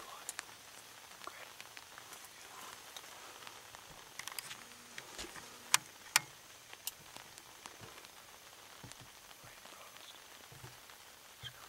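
Light rain: a faint steady hiss with scattered raindrops ticking, two sharper ticks about six seconds in.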